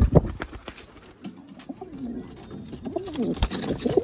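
Domestic pigeons: quick wing flaps as a pigeon flies up during the first second, then pigeon cooing that builds over the second half, with a single sharp knock about three and a half seconds in.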